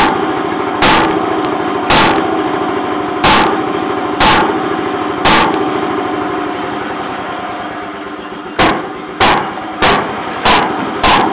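A 1920s–early 1930s Jacobsen two-stroke flywheel engine running slowly, firing with a sharp bang about once a second while the flywheels carry it round between firings, with a steady mechanical hum in between. The firing stops for about three seconds in the middle, then comes back quicker, about every half-second, near the end.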